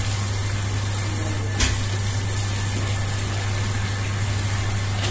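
Electric spiral dough mixer running with a steady low hum as its hook kneads bread dough, with water from a tap pouring into the bowl. One short knock about one and a half seconds in.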